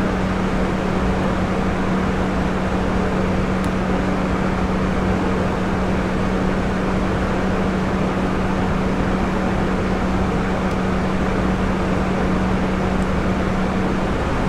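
A steady background hum with hiss, holding one constant low tone, with a few faint light clicks.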